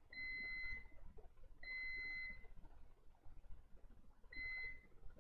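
Digital multimeter beeping three times in a high, steady tone, each beep under a second long, the last near the end, as its probes are held on a power-supply transistor's leads. The beep signals a low reading across the probed transistor, the meter's sign of a possible short.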